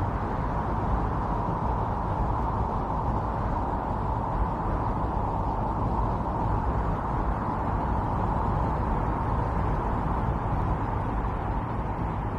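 Strong winter storm wind blowing steadily, a hollow rushing noise with a low rumble that rises and falls slowly in gusts.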